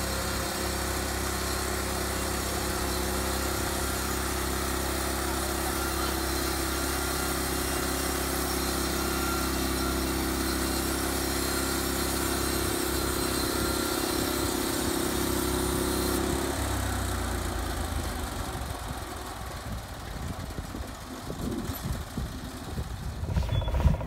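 Norwood LumberPro HD36 portable bandsaw mill running, its engine going steadily as the blade rips through a log. About two-thirds of the way in the steady engine tone breaks off, leaving a rougher, quieter noise.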